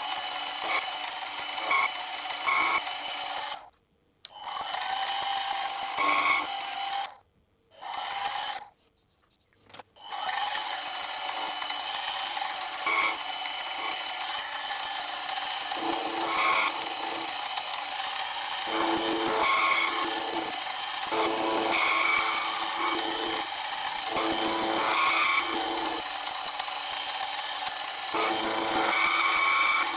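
Milling machine running with its cutter taking light cuts across the face of a cast collar: a steady whining motor and cutting noise, stopping briefly three times in the first ten seconds and then running on without a break.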